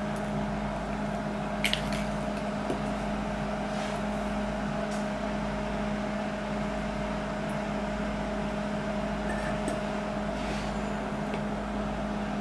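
Microwave oven running: a steady low hum with a higher held tone above it, and a few faint clicks now and then.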